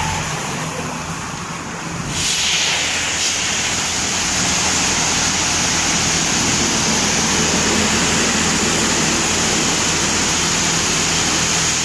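High-pressure water jets from a touchless car wash's spray arm hissing against a car, rinsing off the foam. The spray comes on loud about two seconds in and then runs steadily over a low, steady machine hum.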